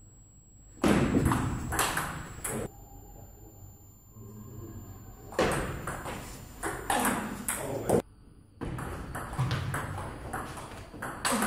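Table tennis rallies: the ball clicking off the bats and bouncing on the table in quick back-and-forth runs. There are three runs of strokes with short quieter gaps between them.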